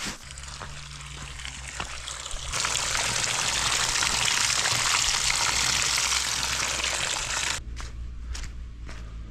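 Loud, even rush of running water that starts suddenly a couple of seconds in and cuts off just as suddenly about five seconds later, followed by footsteps.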